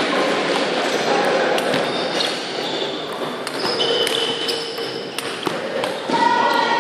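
Table tennis rally: the celluloid ball clicking off the bats and the table at an irregular pace, over the murmur of a large sports hall.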